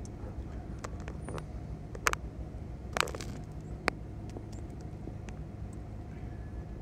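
Low, steady rumble of a car's engine and tyres heard from inside the cabin as it creeps along at walking pace, with a few sharp clicks about two, three and four seconds in.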